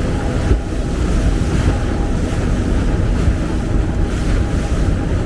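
Steady low rumble of a sightseeing boat's engine under way, with wind buffeting the microphone.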